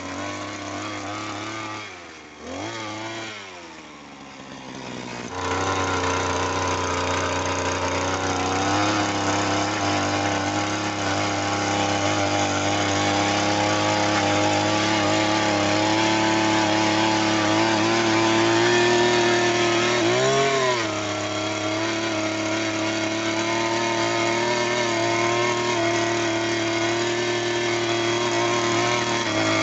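Petrol engine of a handheld 6-inch earth auger running, the auger boring into soil. Its speed drops and wavers for a few seconds near the start, then it is throttled up and held at high revs, with one brief dip in speed and quick recovery about two-thirds of the way through.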